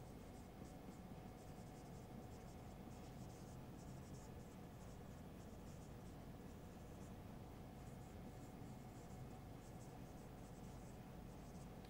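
Whiteboard marker writing on a whiteboard: faint, short scratchy strokes in quick, irregular succession as words are written out.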